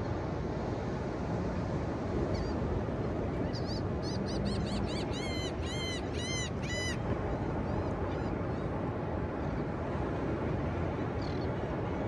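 Steady ocean surf washing over a wide, flat beach. A gull calls a run of short, arched cries from about two seconds in, quickening to about three a second before stopping around seven seconds in.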